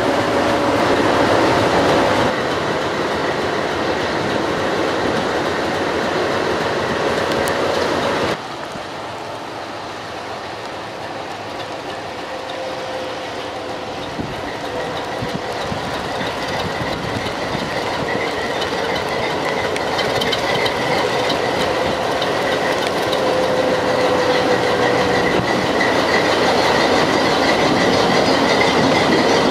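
Diesel locomotive hauling a passenger train away from a station: the engine running, with wheels clattering over the rails. The sound drops suddenly about eight seconds in, then builds steadily as the train draws nearer. A thin, steady wheel squeal runs through the second half.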